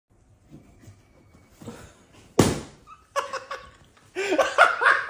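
A single sharp smack about two and a half seconds in, followed by people laughing.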